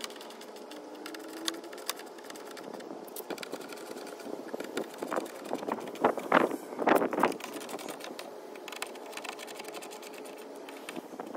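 Small hand ratchet clicking in quick runs while bolts are tightened, with a louder cluster of clicks and scrapes about halfway through.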